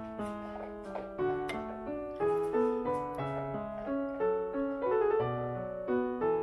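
Background piano music: a gentle melody over steady chords.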